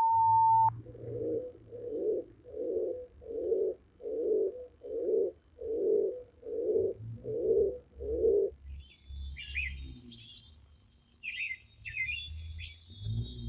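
Birds calling: a run of about ten evenly spaced low calls, then scattered high chirps over the last few seconds. A short held tone from the previous clip cuts off right at the start.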